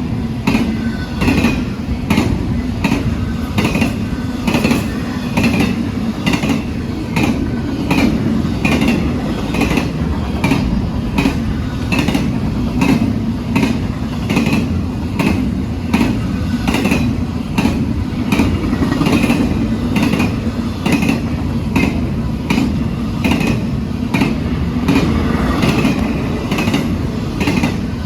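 Norfolk Southern freight train's cars rolling past with a steady rumble and a regular clack of wheels over rail joints, about two clacks a second.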